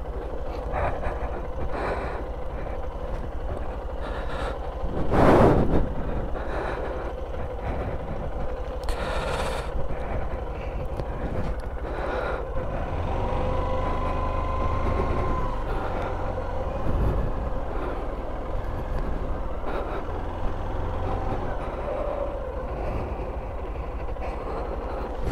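Honda 125 cc motorcycle engine running at low speed with fairly steady revs through a slow U-turn, its pitch rising and falling briefly in the middle. A short loud rush of noise comes about five seconds in.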